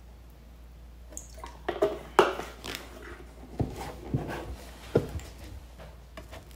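Handling noises on a tabletop close to the microphone as a drink carton and its cap are handled: a few clicks and a sharp knock between one and three seconds in, then three dull thumps on the table.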